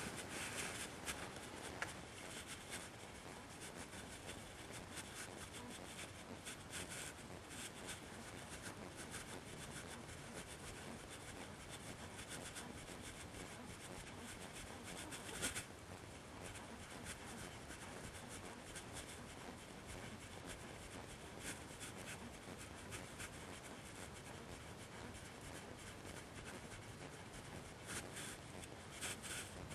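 Faint steady hiss with scattered soft rubbing and scraping sounds, one a little louder about halfway through.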